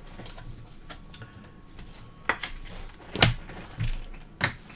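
A few short, light taps and clicks from trading cards being handled and set down on a table, about four in the second half.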